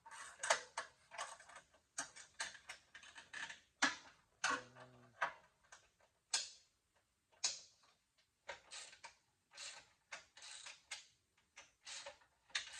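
Hand socket ratchet clicking in short runs of strokes with pauses, working loose the tightly fastened bolts that hold a bench vise to its table. A brief low tone sounds near the middle.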